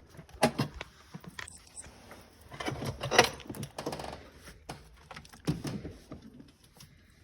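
Handling noise: irregular clicks, knocks and rattles of small objects being moved about, busiest a few seconds in.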